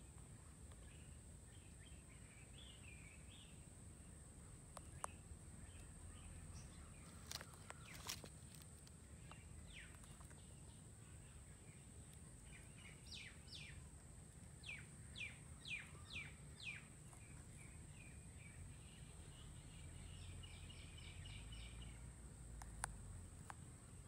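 Faint outdoor quiet with a bird's short falling chirps, about eight in quick succession in the middle, and a few sharp clicks. A steady thin high tone runs underneath.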